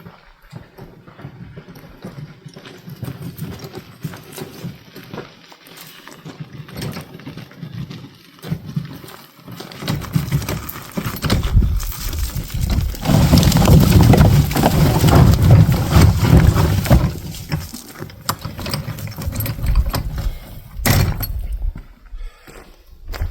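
Footsteps and a wheelbarrow loaded with firewood being pushed over rough ground, with irregular crunches and knocks; it gets loudest for several seconds about halfway through.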